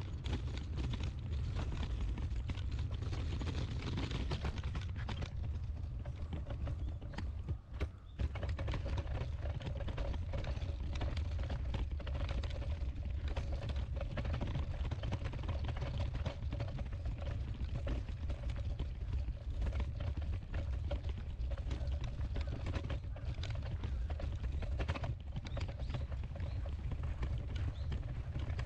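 Footsteps of a person walking outdoors, a run of light steps over a steady low rumble.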